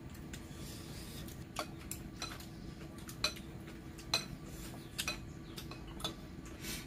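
Chopsticks and spoons clicking and scraping against ceramic plates and bowls while people eat, about seven light, separate clicks over a faint steady hum.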